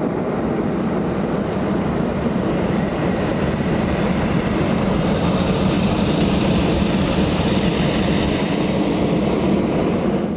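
Hot air balloon's propane burner firing overhead: a loud, steady roar that cuts off suddenly at the end.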